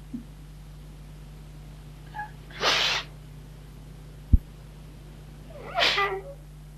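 A woman sobbing through the hand over her mouth, an acted cry: a sharp breathy sob about two and a half seconds in, and a longer, pitched sob near the end. A single short knock falls between them.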